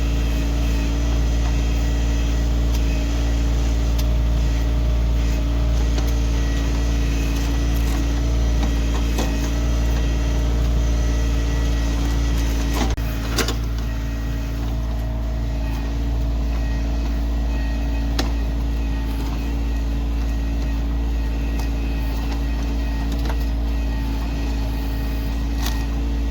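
Kioti CK2610 tractor's three-cylinder diesel engine running steadily while the backhoe works, with scattered clicks and knocks. About halfway through there is a sharper knock, after which the engine runs a little quieter.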